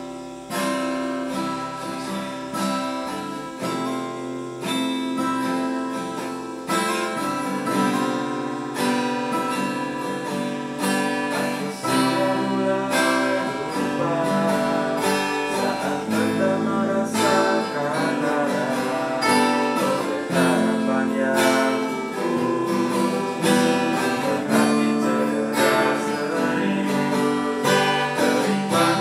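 Two acoustic guitars playing together, strumming and picking chords.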